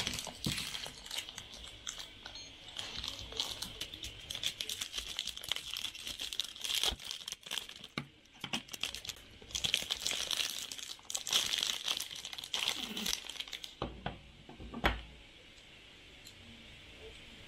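Toy packaging being crinkled and torn open by hand, a dense run of crackling that thins out and stops near the end, followed by a couple of dull thumps.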